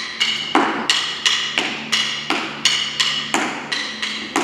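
Wooden drumsticks clicked together in a steady rhythm, about three clicks a second, each with a short bright ring.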